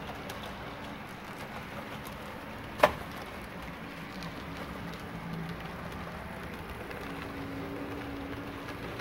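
HO-scale model diesel locomotives and grain cars running on layout track: a steady rolling rumble with a faint low hum. A single sharp click about three seconds in.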